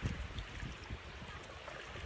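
Shallow sea water lapping, with wind gusting on the microphone as a low, uneven rumble.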